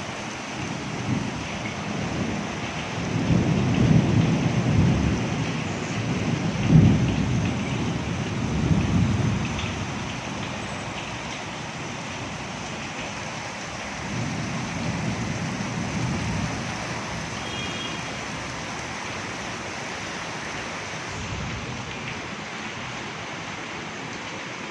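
Steady rain falling, with low rolls of thunder swelling and fading several times, the loudest about seven seconds in.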